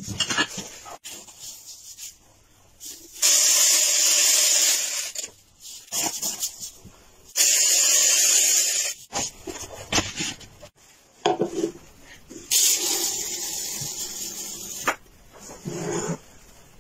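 Dry grain, rice and red beans, pouring into the compartments of a wooden grain-dispenser cabinet: three pours of about two seconds each, with light knocks and clicks of handling between them.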